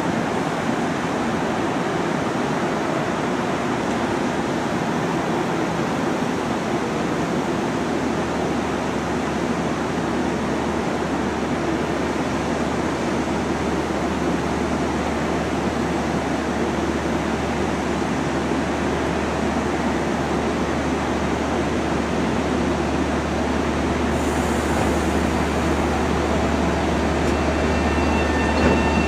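Long Island Rail Road train running on the tracks, a steady rumble of wheels on rail. A low hum grows stronger over the second half, and thin high squealing tones from the wheels start near the end.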